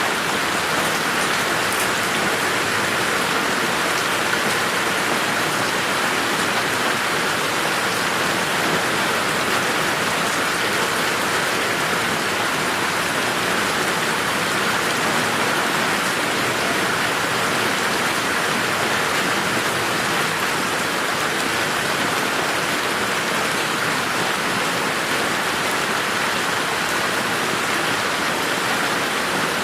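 Steady rain falling in a garden, an even dense hiss of drops without thunder.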